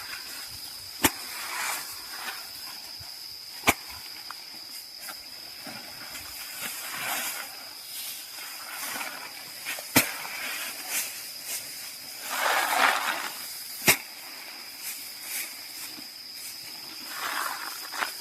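Insects keep up a steady, high-pitched trill. A few sharp single knocks and some soft hissing, rustling noises come now and then; the loudest stretch of hiss is about twelve seconds in.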